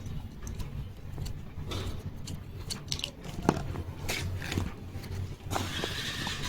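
Small screwdriver turning out the two screws inside a car USB charger adapter: light scattered clicks and scrapes of metal on plastic, with one sharper click about three and a half seconds in. A steady hiss comes in near the end.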